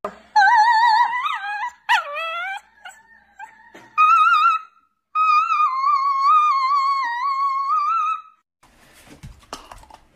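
A dog howling in long, high, wavering notes, about four times with short breaks. The last howl is the longest, and one falls steeply in pitch.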